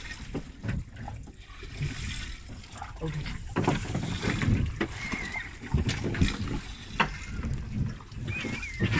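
Water slapping and sloshing against a small boat's hull, with irregular knocks and clatter as an angler winds in line on a large drum reel. A short wavering whistle sounds about five seconds in and again near the end.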